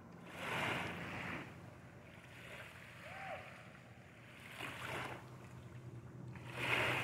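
Small waves lapping on a sandy lake shore, each wash swelling and fading every couple of seconds, over a faint steady low hum.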